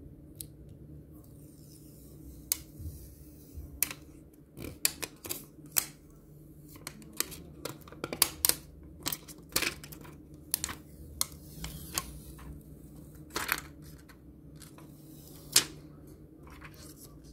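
Irregular sharp clicks and taps from hands handling a smartphone display panel over the phone's metal frame, densest through the middle with one loudest snap near the end, over a faint steady hum.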